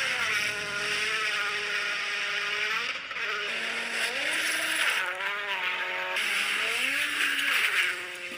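Rally car engines at full speed on a special stage, the note climbing and dropping through gear changes as the cars pass, over gravel and road noise. The sound changes abruptly twice as one pass gives way to the next.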